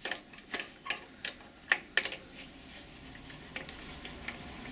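Sharp, irregular metallic clicks, about seven in the first two seconds and a few fainter ones after: a 10mm socket and wrench working the bolt that holds the air filter on a Clarke industrial compressor.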